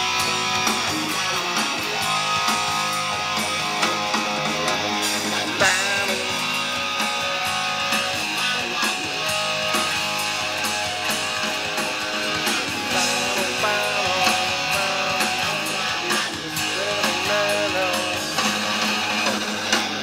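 Electric guitar lead, a Gibson Les Paul Custom played through a Splawn Quick Rod amp and a 4x12 cabinet, with bent and held notes over a rock backing track.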